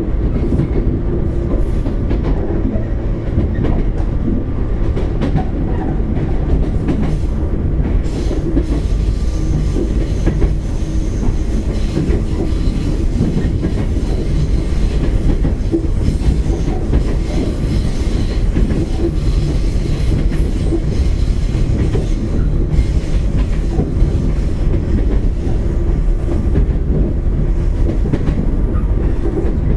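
Running noise of a 115-series electric multiple unit motor car, KuMoHa 114-501, heard from inside the car while under way: a steady, loud low rumble of wheels on rail and the running gear.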